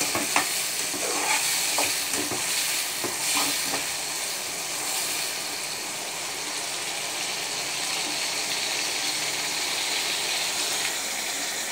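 Garlic, shallots and tomato frying in hot oil in a metal pan: a steady sizzle, with a spoon scraping and clicking against the pan during the first few seconds.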